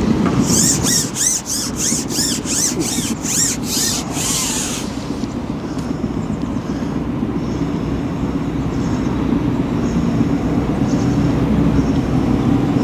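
A carbon fishing pole being fed out. For the first four or five seconds there is a rhythmic high scraping or squeaking, about two or three strokes a second, over a steady rumble of gusting wind and road traffic.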